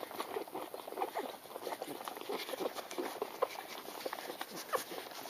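A litter of puppies feeding, giving a quick, uneven run of small squeaks, grunts and suckling smacks.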